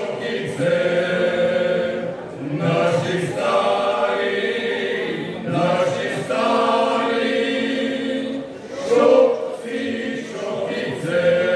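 Men's folk singing group of eight voices singing a Slavonian folk song a cappella together, in long held phrases with short breaks for breath about every three seconds.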